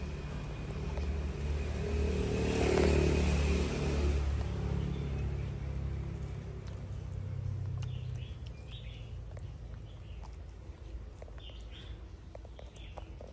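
A low motor rumble swells about two to three seconds in and fades away, like a vehicle passing. From about eight seconds on, short high chirps come every second or so.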